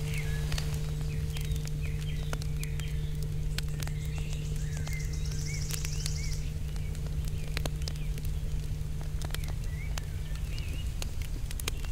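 Small birds chirping, with a fast high trill about halfway through, over a steady low hum. Scattered light crackles come from aluminium foil being crumpled and pressed by hand.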